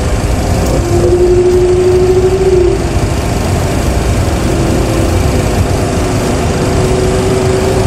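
Simulated Boeing 737 Classic jet engines running at idle thrust while the aircraft lines up on the runway: a steady low rumble with a steady hum over it, the hum louder for the first couple of seconds.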